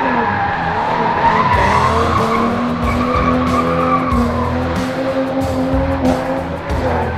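Turbocharged Ford AU Falcon ute drifting, its engine held at high, fairly steady revs while the rear tyres skid and squeal.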